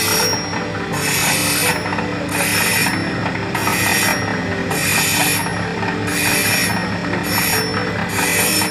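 Motor-driven gem-grinding machine with stacked grinding wheels running with a steady hum, while a small agate stone is pressed against a wheel by hand. The grinding gives a hissing scrape that comes and goes about once a second as the stone is pressed on and eased off.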